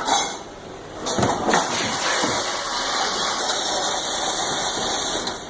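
Factory machinery running with a steady, loud hissing noise, which sets in about a second in after a brief sharp sound at the start.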